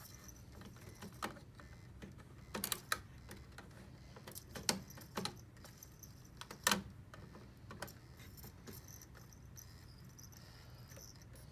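Light, irregular clicks and taps from an opened Blu-ray player's disc drive and tray being handled, loudest about two thirds of the way through, over a faint steady hum.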